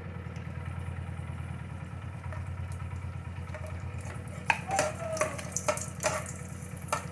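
Frying in ghee in a metal kadai: a steady low hum under a light sizzle. From about four and a half seconds in, a metal spatula scrapes and clinks against the pan several times.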